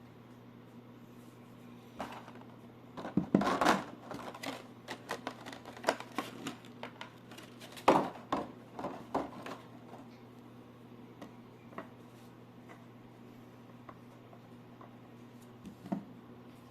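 Toy packaging being handled: a quick run of clicks, taps and rustles of plastic and cardboard, busiest in the first half, then a few scattered ticks, over a steady low electrical hum.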